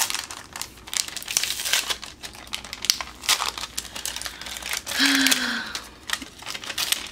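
A translucent paper envelope of stickers crinkling as it is handled and opened, with dense, irregular crackles. A brief low tone sounds about five seconds in.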